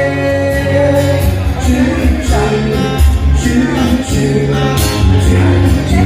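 Background music: a song with a steady beat, bass and vocals.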